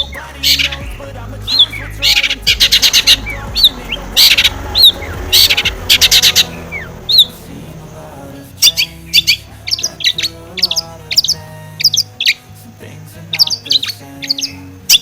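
Long-tailed shrike (cendet) singing: sharp whistled chirps and short harsh chattering notes, coming in quick runs through the second half, over soft background music.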